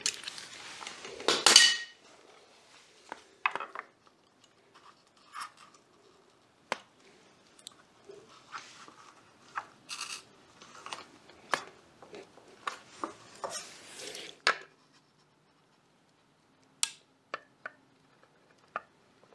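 Gloved hands handling and fitting hard plastic mounts onto the edge of a solar panel's aluminium frame: a loud rustling scrape in the first two seconds, then scattered clicks, taps and rustles, and a few sharp clicks near the end.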